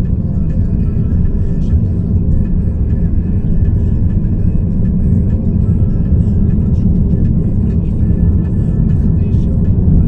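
Steady low rumble of a car's engine and tyres on asphalt, heard from inside the cabin while driving.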